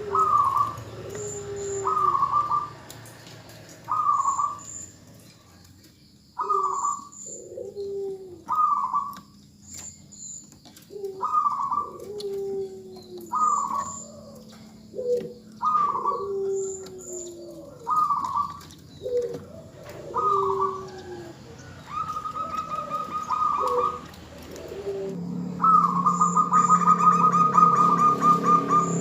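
Zebra doves (perkutut) calling: short falling coos repeated about once a second, with lower answering notes. Near the end comes a longer, rapidly pulsing coo.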